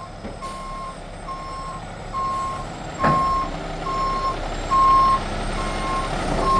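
A McNeilus front-loader garbage truck's reversing alarm beeping steadily, about one beep every second, over the truck's engine running. There is a single sharp knock about three seconds in.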